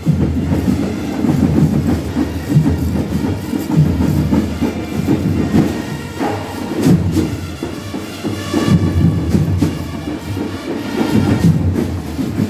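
Marching band playing loudly, with heavy drumming carrying a steady rhythm.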